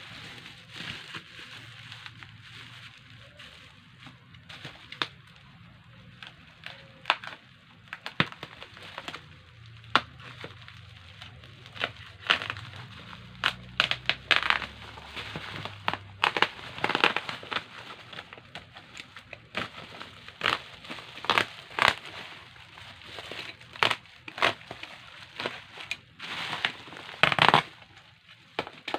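Packaging being opened and handled, crackling and crinkling in irregular sharp bursts that grow busier and louder partway through.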